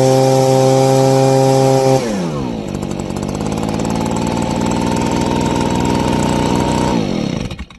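Stihl handheld leaf blower's two-stroke engine, running on a newly fitted aftermarket carburetor and fuel-system kit. It is held at high speed, then drops to idle about two seconds in and idles steadily. Near the end it is switched off with the on/off switch and runs down to a stop.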